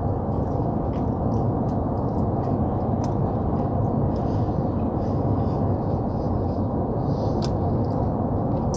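Steady low rumble of a truck, heard from inside its cab, with a few faint clicks.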